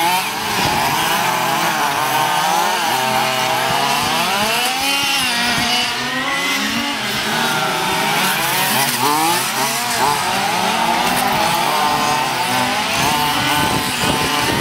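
Several radio-controlled model race cars with small two-stroke engines running at once, each revving up and down as they race. Their whines rise and fall and overlap throughout.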